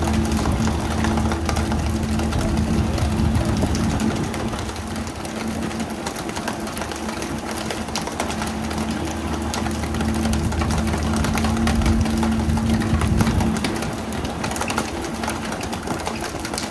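A boat's engine running with a steady low hum over a constant rushing noise; the hum stops near the end.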